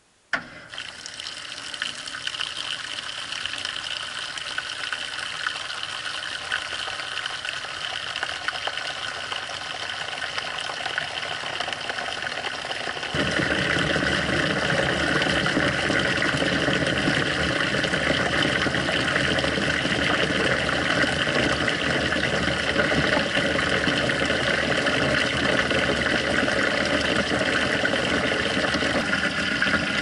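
Water rushing into a top-loading washing machine's tub as the fill cycle starts, heard from inside the closed tub: it starts suddenly, then runs as a steady gush that grows louder and fuller about 13 seconds in.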